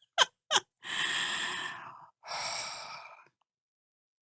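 Two short clicks, then two long breathy exhales like sighs, the first a little over a second long and the second about a second. The sound stops abruptly after about three seconds.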